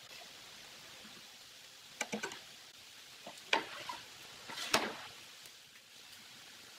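Pine boards knocking against each other and the wooden frame as lengths of timber are handled and stood upright: a few quick taps about two seconds in, a sharper knock a moment later, and the loudest knock near five seconds, over a steady hiss.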